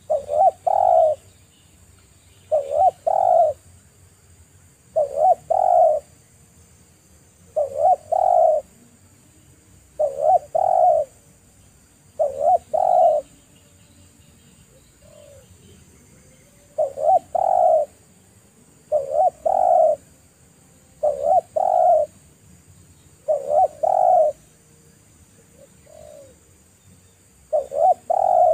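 Spotted dove cooing: a loud phrase of two or three notes, repeated every two to three seconds with a longer pause midway.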